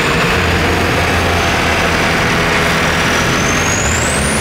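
Engines of off-road 4x4 vehicles running steadily in a mud pit, with a thin high whine that rises near the end.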